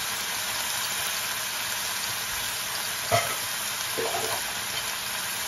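Beef chunks and sliced onion frying in oil in a stainless steel pan, a steady sizzle, with one sharp knock about three seconds in and a few softer knocks a second later.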